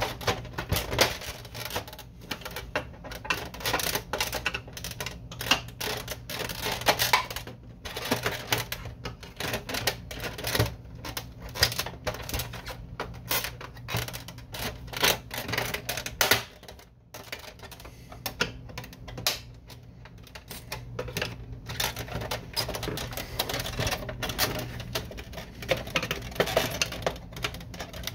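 Plastic housing of a Canon Pixma MG5220 inkjet printer being handled and pried apart with a screwdriver: irregular clicks, knocks and rattles of plastic parts and clips, with a quieter stretch in the middle.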